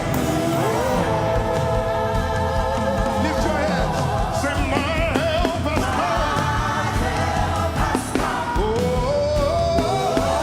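Live gospel worship music: singers holding long, wavering notes over a full band with a steady low beat.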